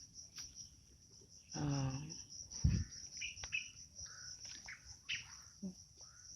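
Steady high buzzing of insects, with a few short bird chirps a few seconds in. A brief voice sounds just under two seconds in, and a single dull thud follows soon after.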